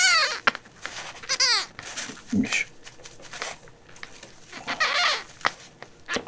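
Very young kitten crying: high-pitched mews that fall in pitch, two loud ones in the first second and a half and a fainter one about five seconds in, amid soft handling clicks.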